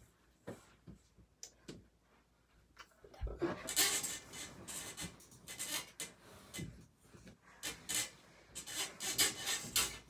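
Bedding rustling and rubbing as the covers are handled: a few faint rustles, then from about three seconds in a run of louder, irregular rustles.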